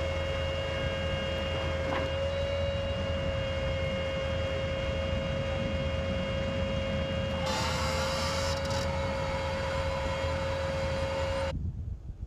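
M270 MLRS tracked launcher vehicle running with a steady whine over a low engine rumble. A short hiss rises about 7.5 seconds in, and the sound cuts off abruptly near the end.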